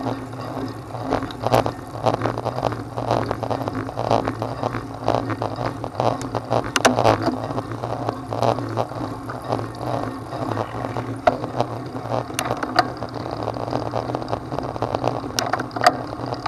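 A vehicle jolting along a rough, stony track: constant irregular rattling and knocking over a steady low hum.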